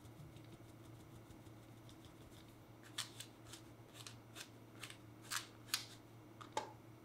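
Handled stainless steel mesh sieve being shaken to sift cake flour into a bowl: faint light ticking at first, then about ten sharp, irregular metallic ticks over the last few seconds.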